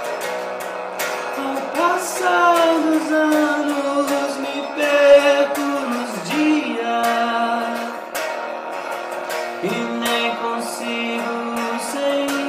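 Guitar playing a slow passage of a song, with long held notes that slide up and down in pitch.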